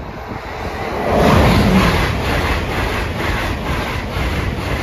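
Train passing the level crossing at speed: a loud rush of wheel and air noise builds about a second in, with a steady rapid clatter of wheels over the rails.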